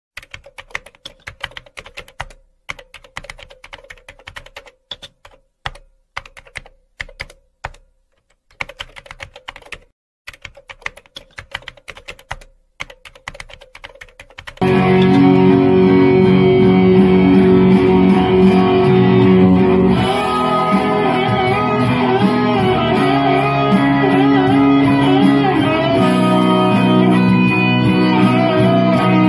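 Bursts of rapid clicking like keyboard typing, in short runs with brief gaps. About halfway through, loud electric guitar instrumental music starts suddenly, with bending guitar notes.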